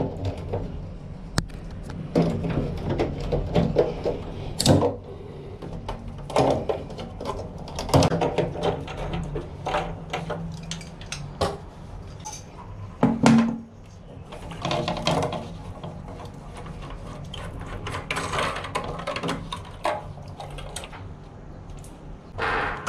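Irregular clicks, knocks and scrapes of plastic parts and pliers as a toilet cistern's fill valve is taken apart by hand to swap its rubber washer.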